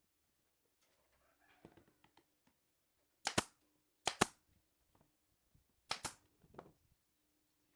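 Three sharp double cracks during woodworking, the two hits of each pair a split second apart, the pairs a second or two apart, with softer handling knocks around them.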